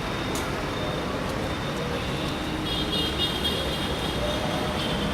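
Steady city road traffic: a continuous wash of engines and tyres from a busy road junction, with a brief high-pitched squeal about three seconds in.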